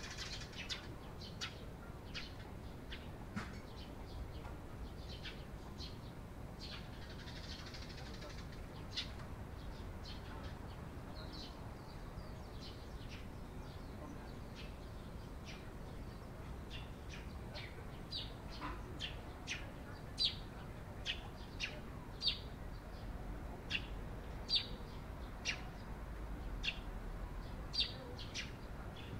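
Eurasian tree sparrows chirping: short, sharp chirps, scattered at first and coming faster and louder in the second half.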